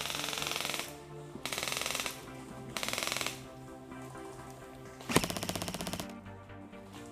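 Airsoft gun firing four short full-auto bursts, each a rapid even rattle of shots under a second long; the last, about five seconds in, is the loudest.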